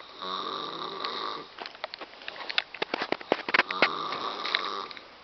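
A sleeping woman snoring loudly: two drawn-out snores about a second long each, with a quick run of sharp clicks on the breath between them.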